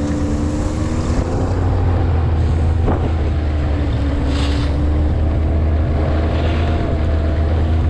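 Vehicle engine running steadily under way: a continuous low drone with a slightly wavering hum above it, plus wind noise on the microphone.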